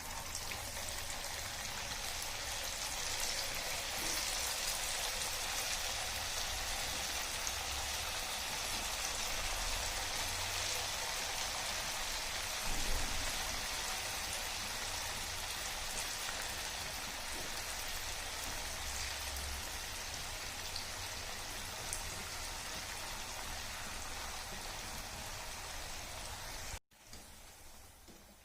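Batter-coated cauliflower florets deep-frying in hot oil, a steady sizzle that stops abruptly near the end.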